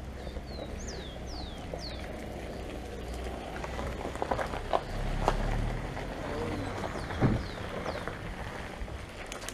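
Mountain bike rolling along a dirt trail: tyre noise and rumble with scattered knocks and rattles from the bike. A bird gives several short, falling whistles in the first two seconds and again near the end.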